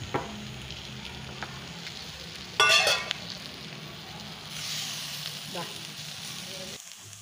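Fish in masala sizzling in a little oil on a low flame inside a banana-leaf wrap in a pan. A loud clank with a brief ring comes about two and a half seconds in, as the steel vessel used as a weight is taken off. The sizzle grows brighter once the top leaf is peeled back, then drops abruptly near the end.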